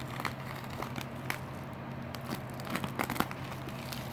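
Shipping packaging being handled and opened: crinkling and tearing with scattered sharp clicks and crackles.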